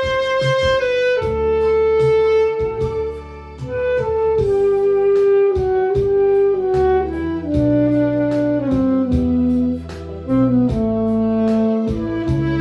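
Saxophone playing the melody of a slow Korean ballad in long held notes that step downward, over an accompaniment track with bass and a steady beat.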